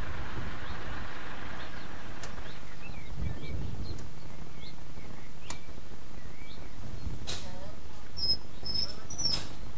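Small birds chirping in short scattered calls over a steady low hum, with a hiss fading away in the first two seconds and a few sharp clicks.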